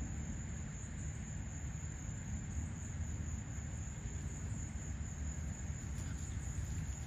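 Insects droning steadily with one thin high-pitched tone, over a constant low rumble.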